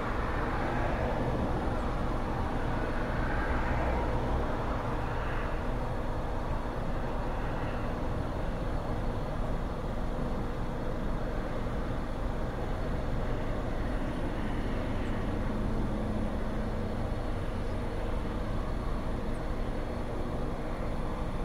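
Steady low engine rumble that holds an even level throughout, with no distinct events.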